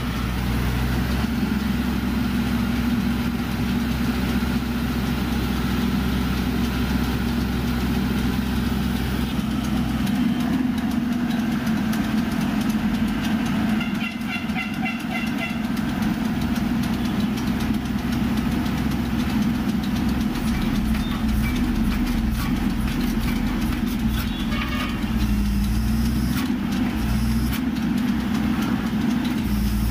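Diesel engine of an XCMG horizontal directional drilling rig running steadily with a constant hum. Its deep rumble fades about ten seconds in and comes back near the end.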